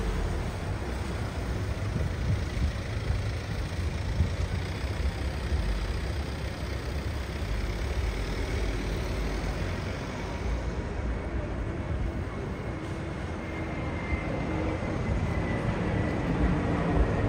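Road traffic noise: a steady low rumble of passing vehicles. A faint high-pitched whine joins in over the last few seconds.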